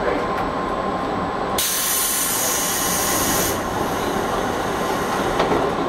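JR East 211 series electric multiple unit running slowly, heard from inside the front cab, with a steady rumble and a faint steady tone. A sudden loud hiss cuts in about a second and a half in and stops abruptly about two seconds later.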